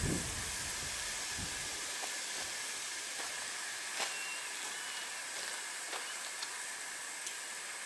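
Steady outdoor hiss, with wind rumbling on the microphone for the first second or two, and a few soft clicks of footsteps on the rock ledge.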